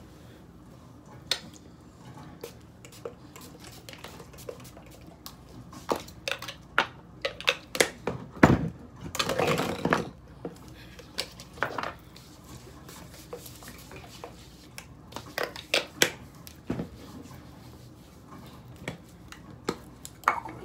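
Scattered light clicks and knocks of small toiletry bottles and caps being handled, with a denser rustling burst lasting about a second around the middle.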